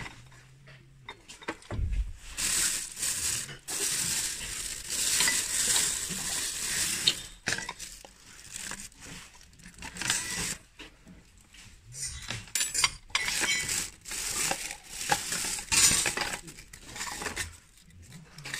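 Hands rummaging through a plastic crate of mixed household goods: things rustling and shifting, with dishes and cutlery clinking and knocking together, in two long spells.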